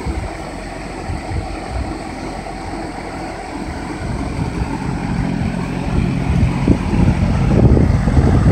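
Large drum fan running: a steady low hum with rushing air, growing louder over the second half as the microphone comes close to it.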